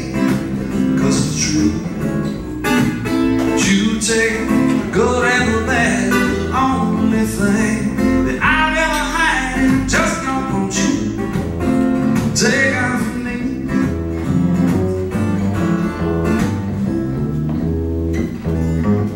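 Live acoustic country-style song: acoustic guitar strummed over a plucked upright bass line, with a man's voice singing in places.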